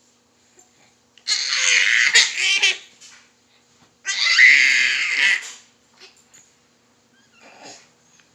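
A baby's squealing laughter in two loud bursts, each about a second and a half long, with a faint short sound near the end.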